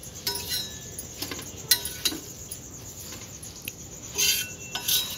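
Metal spatula scraping and clicking against a tawa as toasted bread slices are lifted off it, in short irregular scrapes, with a louder run of scraping about four seconds in.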